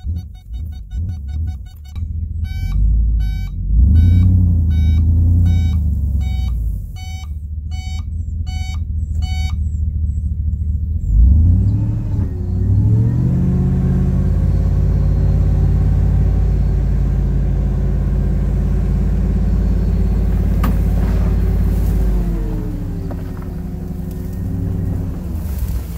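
A pulsing electronic beep, about two a second, for the first ten seconds. Then a Chevy Silverado 3500 dump truck's engine rises in pitch about eleven seconds in and holds steady for some ten seconds while it drives the hoist that raises the loaded bed. It drops back near the end as the clay slides off.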